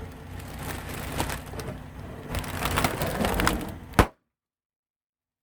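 Objects being crushed under a car's tyre: dense crackling and crunching for about four seconds, ending in one loud sharp crack, after which the sound cuts off suddenly.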